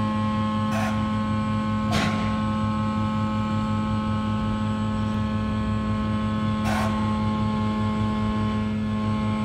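A steady hum of background machinery, made of several unchanging tones, with brief hissing swishes about one, two and seven seconds in.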